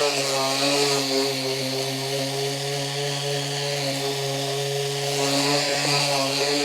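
An electric power tool's motor running steadily with an even, pitched hum, briefly dipping near the end.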